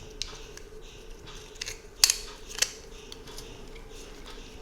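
Small sharp clicks and taps of a screw and frame parts being handled as a screw is set into a quadcopter frame plate, with the two loudest clicks about two seconds in, half a second apart.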